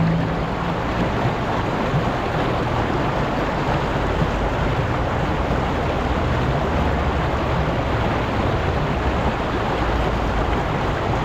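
Fast glacial meltwater stream rushing steadily over rocks.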